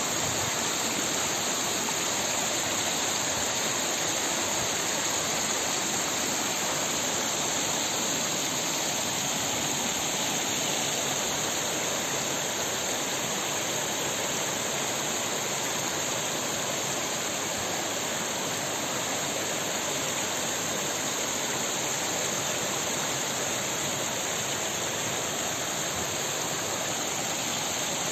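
Shallow mountain stream running over rocks and stones, a steady rush of water.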